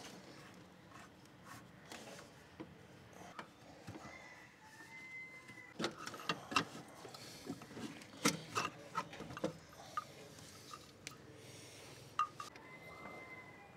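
Hand-tool work on a diesel fuel pre-filter: a 14 mm open-end spanner and metal fittings clicking and clinking, with a run of sharp metallic clicks about halfway through.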